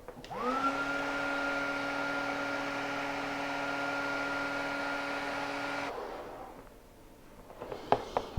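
Wagner HT400 heat gun switched on, its blower motor spinning up within a moment to a steady whirring hum with airy rush. It runs about six seconds while shrinking heat-shrink tubing over a wire splice, then is switched off and winds down.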